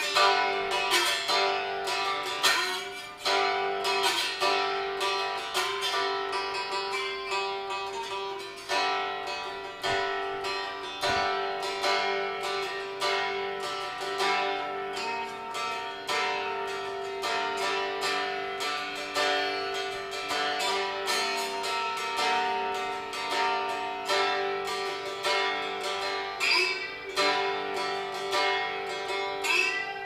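Homemade acoustic fretless slide resonator guitar, a cutting-board body with a strainer-bucket lid for a resonator, tuned open G (G-D-G) and played with a metal slide. Picked slide notes ring over a steady drone.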